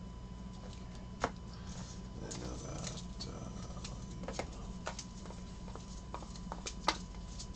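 Baseball trading cards handled and fanned through by hand: soft sliding and flicking of card edges with scattered light ticks, and two sharper taps, one about a second in and one near the end. A steady low hum sits underneath.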